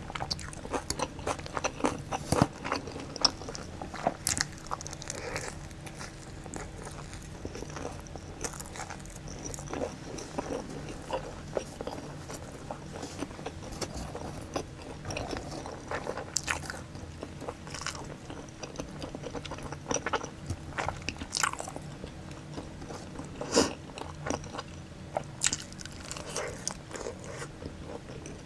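Close-miked chewing and crunchy biting of pizza and sauce-coated boneless fried chicken: a steady run of wet chewing with sharp crackly crunches, densest in the first few seconds and in a few loud bites later on. A faint steady hum sits underneath.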